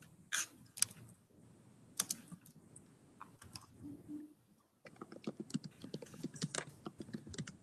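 Typing on a computer keyboard: scattered key clicks, then a fast run of keystrokes from about five seconds in.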